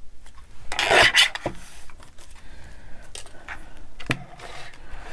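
Paper and card being handled and slid against each other: a loud rustle about a second in, then softer rustles and a few light taps.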